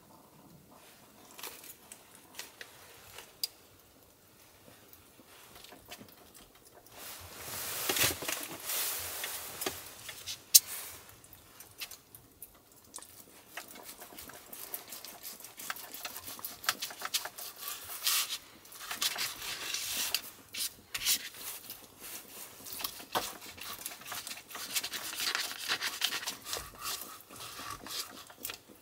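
Kitchen knife cutting thin-sliced raw beef on a cutting sheet laid over a wooden board: many short, uneven strokes with soft scraping and taps of the blade on the board, starting about a quarter of the way in. Before that there are only a few light clicks as chopsticks lay the meat down.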